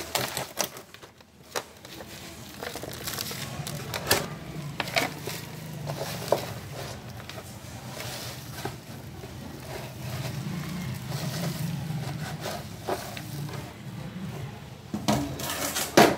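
Crackly rustling and scraping of damp kitchen scraps and soil being mixed by hand in a plastic tub and tipped into a pot, with scattered small knocks and a sharper knock near the end.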